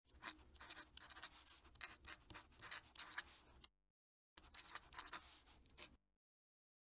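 Fountain pen nib scratching faintly across paper in a quick run of short writing strokes. The strokes pause briefly just over halfway and stop near the end.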